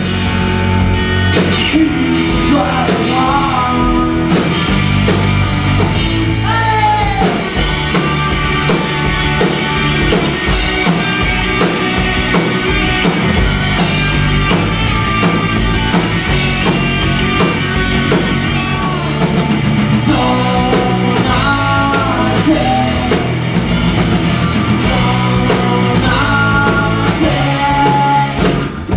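Rock band playing: electric guitars and a drum kit with a steady beat, and a sung lead vocal over them.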